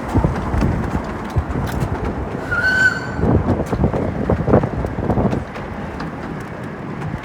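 Wind buffeting the microphone over the rumble and irregular clatter of a miniature railway train, with one short high whistle about two and a half seconds in.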